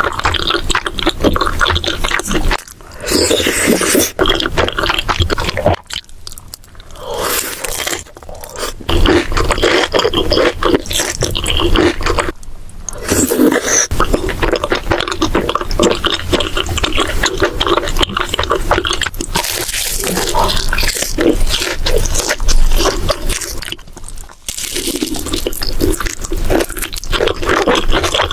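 Close-miked eating: loud crunchy chewing with dense crackling, broken by a few short pauses.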